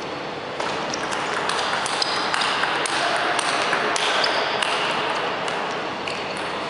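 Table tennis rally: the celluloid ball pinging sharply off the rackets and bouncing on the table, a hit or bounce roughly every half second, over background noise that rises about half a second in.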